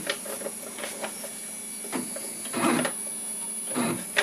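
Stepper motor of a DIY CNC router jogging the Z axis in short bursts, about one a second, as the spindle is stepped down onto a sheet of paper to find the tool's touch-off height. Paper rustles under the bit between moves.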